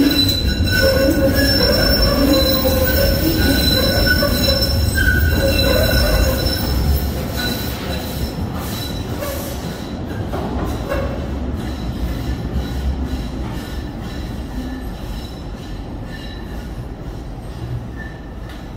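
Tram wheels squealing with several steady, high tones as the tram pulls out along a curved underground track, over a low rumble of running gear. The squeal stops after about seven seconds and the rumble fades as the tram moves off into the tunnel.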